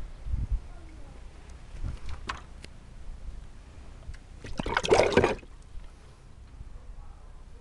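Water splashing briefly in a plastic basin, about five seconds in and lasting under a second. Wind rumbles on the microphone at the start.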